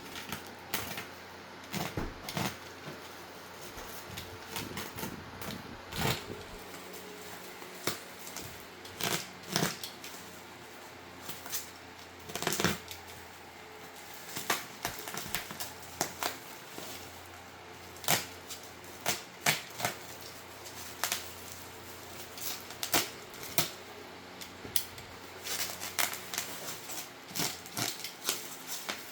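Irregular sharp clicks, taps and rustling from handling a keyboard and its packaging, with a few louder knocks scattered throughout.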